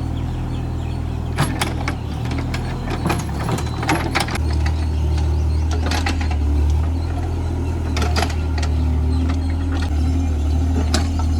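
Mini excavator's diesel engine running under load, its low hum growing louder about four seconds in, with sharp metallic clanks from the digging gear several times.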